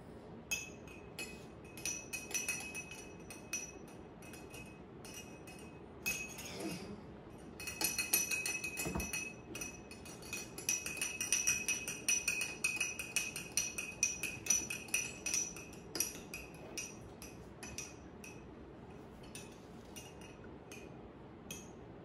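A metal spoon stirring in a drinking glass of water and oil, clinking against the glass. Each clink leaves a short high ring; the clinks come now and then at first, then quick and many from about a third of the way in until past the middle, then thin out again.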